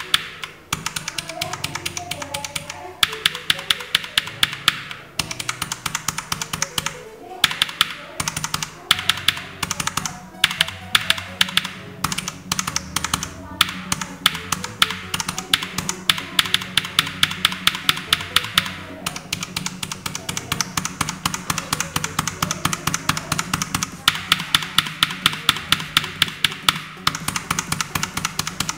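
A mechanical keyboard's clicky Outemu blue switches are pressed repeatedly, several strokes a second, in runs with short breaks. One keycap is fitted with a rubber O-ring dampener and another is left bare, so the sharp clicky bottoming-out presses can be compared with damped, softer ones.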